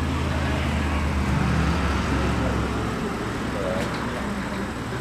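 Lamborghini Gallardo's V10 engine running as the car drives away through a bend on a wet circuit, heard from trackside; loudest about a second and a half in, then easing slightly near the end.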